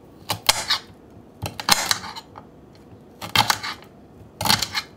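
Kitchen knife cutting broccolini stems into small chunks, the blade crunching through each stem and clicking against a hard cutting board: four quick groups of cuts, about one a second.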